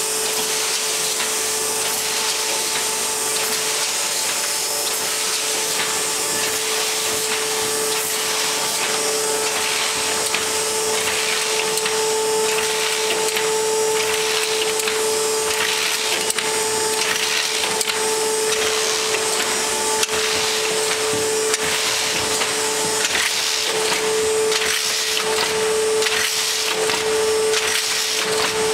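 Bobst SP 1080 E flatbed die-cutter running in production, feeding and cutting sheets: a steady mechanical hum with a regular clatter from each machine cycle.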